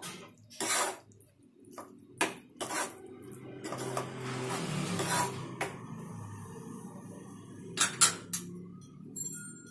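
A metal spoon stirring thick curry in a non-stick frying pan: scattered clinks and knocks against the pan, with a longer scraping stretch around the middle.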